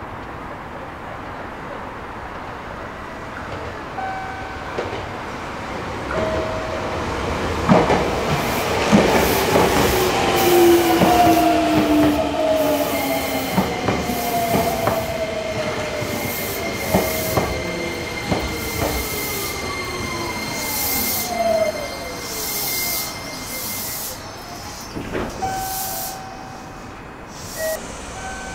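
Nagoya subway N3000 series electric train braking into the station, its Toyo IGBT-VVVF inverter whine falling in pitch as it slows, with wheel knocks over the rails and a steady high squeal while it comes to a stop.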